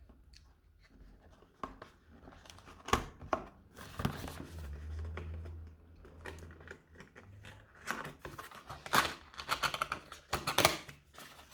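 Cardboard sunglasses box and its packaging being opened by hand: rustling, crinkling and tearing, with scattered clicks and taps of handling.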